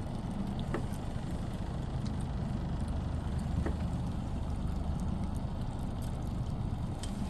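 Boat motor running steadily at low speed, a low even hum under the scene.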